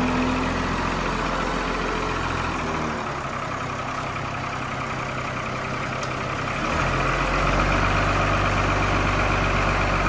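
Case Maxxum 5130 tractor's diesel engine running while the front loader is raised on its hydraulics; the engine note gets louder and steps up about seven seconds in.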